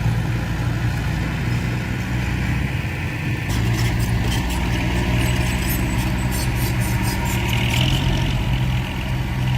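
Heavy diesel engine of earthmoving machinery running steadily with a low hum. About three and a half seconds in, a quick run of sharp clicks or rattles begins over it.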